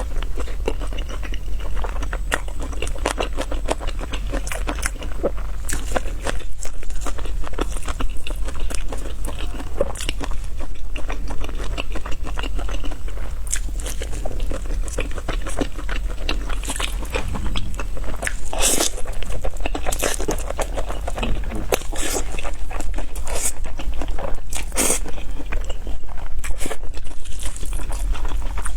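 Close-miked eating sounds: biting and chewing spicy noodles and chicken, with dense crackling clicks and several louder crunchy bites.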